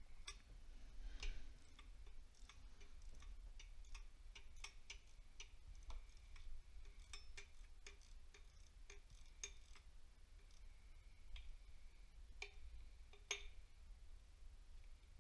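Faint, irregular metallic clicks and taps of hand tools and loose parts against the metal of a dismantled diesel engine, with two sharper clicks near the end.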